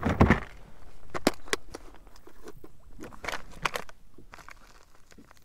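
Scattered clicks and knocks of gear being handled on a plastic kayak, with a clear plastic tackle box of lures taken out and handled; the loudest knock comes right at the start, then a few sharper clicks follow.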